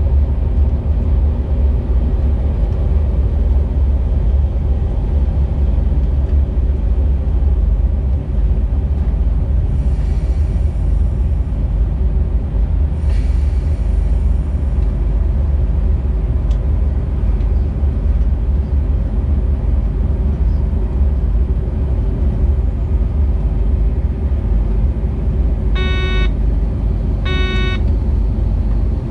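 Freight train running with a steady low rumble, and two short blasts of the Rd2 electric locomotive's horn near the end.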